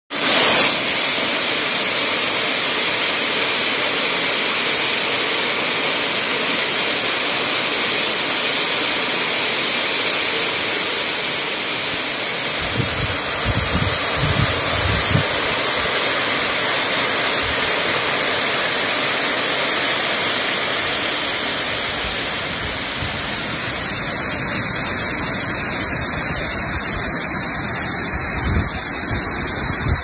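Waterfall: water falling over granite rocks into a pool, a loud steady rushing hiss. A few brief low bumps come about halfway through and near the end.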